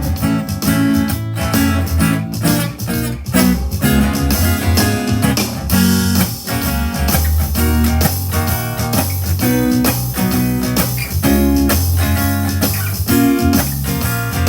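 Instrumental break of a pop song: guitar over bass and a steady beat, with no singing.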